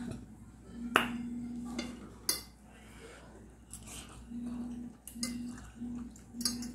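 Metal fork clinking and scraping against a bowl of instant noodles as they are twirled up and eaten, with a few sharp clicks, the loudest about a second in, and some slurping of noodles.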